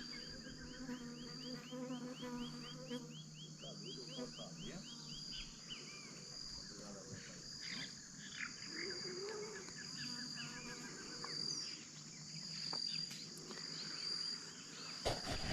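Insects buzzing steadily with birds calling; in the first few seconds a bird gives a quick run of repeated chirps, about six a second. A thump comes near the end.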